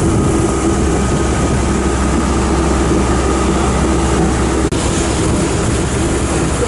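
Passenger boat's engine running steadily under way, a low hum under a loud, even rush of wind and water. The sound drops out for an instant about two-thirds of the way through.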